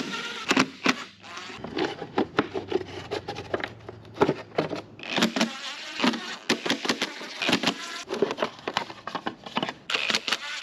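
Timing cover bolts being removed from a Subaru EJ257 engine: a small power tool whirring in short runs, with many irregular metal clicks and clinks of tools and bolts. A steady low hum runs under it for a few seconds near the start.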